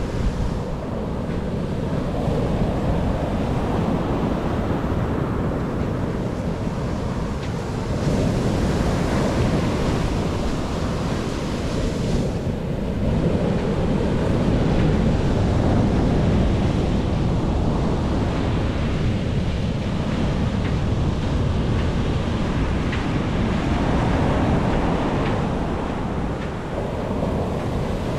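Mediterranean surf washing onto a sandy beach, swelling and easing, with wind rumbling on the microphone.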